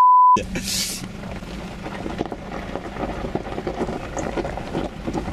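A loud steady censor bleep with all other sound muted, cutting off a third of a second in; then a short hiss, and the Nissan Patrol's diesel engine running steadily, heard from inside the cabin as a low rumble with a faint hum and small knocks.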